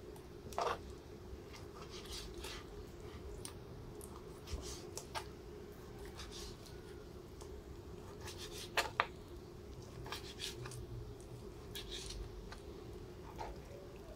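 Knife slicing raw chicken breast on a plastic cutting board: scattered light taps and clicks as the blade meets the board, with a close pair of sharper clicks about nine seconds in. A faint steady hum runs underneath.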